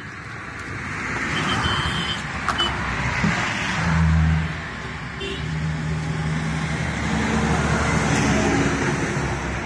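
Road traffic passing close by: vehicles swell and fade twice, one with a low engine hum near the middle. A few light ticks of glass being handled are heard.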